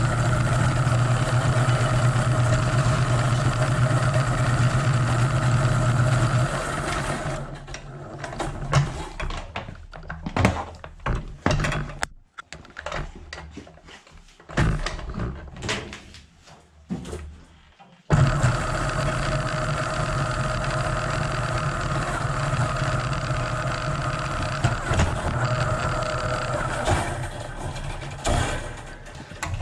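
Electric Eel Model C drain-cleaning machine's electric motor running steadily, then winding down after about six seconds. Several seconds of scattered knocks and clatter follow, then the motor starts abruptly and runs on.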